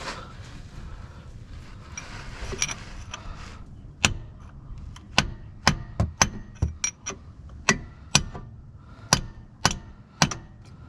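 Hammer striking a punch held against a new CV axle's groove, driving the axle into its seat: handling and scraping noise for a few seconds, then a run of sharp metallic blows at roughly two a second.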